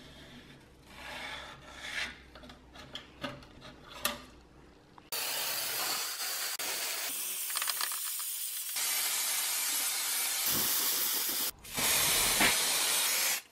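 Faint pencil scratching and light taps on the aluminium dome, then an aerosol spray-paint can hissing in long, continuous sprays from about five seconds in, with one short break near the end.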